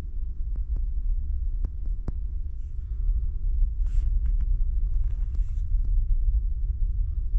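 Steady low rumble and hum of the ferry's engines while under way, heard inside a small sleeping berth, with a few faint clicks and soft rustling.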